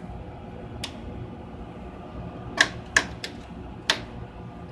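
Five sharp clicks of the Tektronix R7704 oscilloscope's front-panel controls being turned, one about a second in and the rest bunched in the second half, over the steady hum of the powered-up mainframe.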